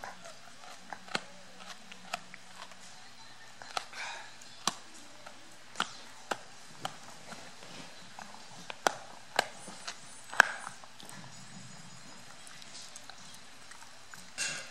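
Dog gnawing and chewing a rawhide treat: irregular sharp cracking clicks from its teeth on the hide, one or two a second, thinning out after about ten seconds, with a short louder noise near the end.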